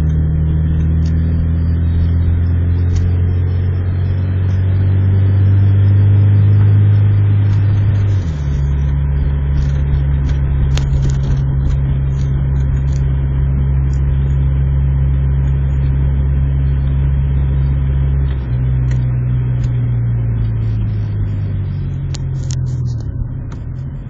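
Honda Civic EJ1 engine heard from inside the cabin while driving: a steady low drone that changes abruptly about eight seconds in, then eases off and drops in pitch over the last few seconds as the car slows.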